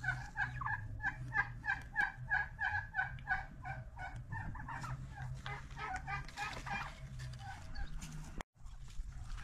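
Domestic turkey calling: a long, even series of short notes, about three or four a second, that thins out near the end.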